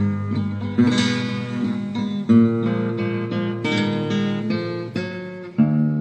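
Acoustic guitar playing the closing bars of a song with no singing. A chord is struck every second or two and left to ring.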